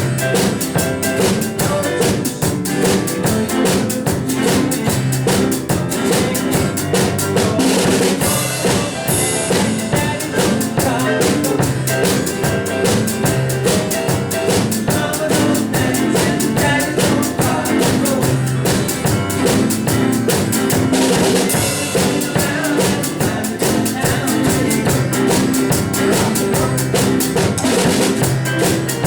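A small rock band playing live: a drum kit keeps a steady beat over bass guitar, piano and electric guitar, with a cymbal crash about eight seconds in and again about twenty-one seconds in.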